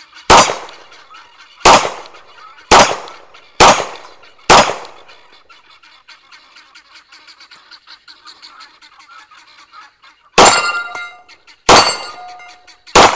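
Semi-automatic pistol shots at steel targets: five quick shots about a second apart, a pause of some six seconds, then three more. After the last shots the steel plates ring briefly when hit.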